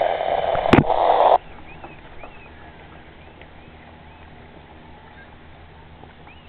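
A loud rush of splashing water with a sharp knock about a second in, which cuts off abruptly after a second and a half. After that it is much quieter, with faint, short seabird calls repeating over the water.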